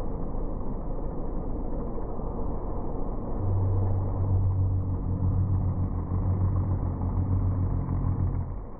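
Harvest machinery engine running, with a steady rumble throughout. A low, steady drone joins about three and a half seconds in and stops just before the end.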